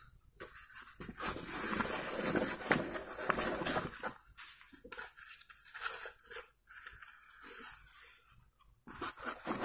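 Paper packet of slate pencils rustling and crinkling as it is handled and opened, with scattered light clicks of slate pencils dropping onto a pile of slate pencils.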